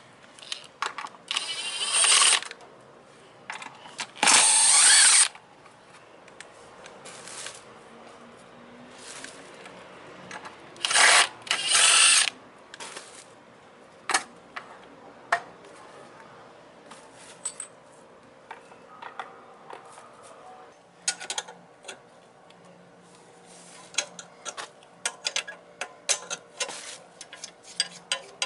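Tools at work on a scooter's rear brake: four loud bursts of a power tool or ratchet, each about a second long, two of them early on and two close together near the middle. Between them come scattered clicks and clatter of metal tools and parts.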